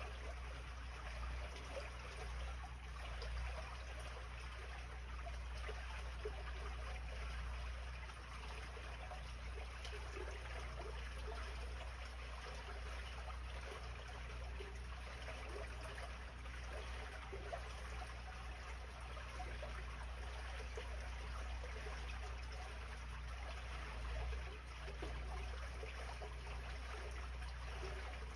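Water trickling steadily along a roadside drainage gutter, over a steady low rumble.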